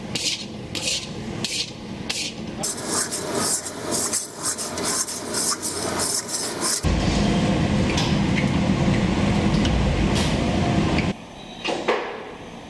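A long metal spatula scrapes around a large metal kadai through a thick, crumbly mixture in ghee, in repeated strokes that come faster after a few seconds. From about seven seconds in, a loud, even rumbling noise takes over for around four seconds, then drops away to quieter kitchen sound with a scrape or two.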